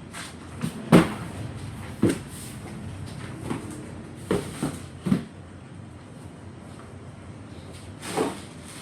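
A series of irregular knocks and clatters, about seven over several seconds, the loudest about a second in, over a low steady background.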